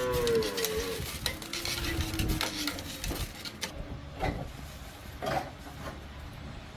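Metal scraping and small clinks and knocks of hand tools working on metal machine parts, with a short falling squeal at the start.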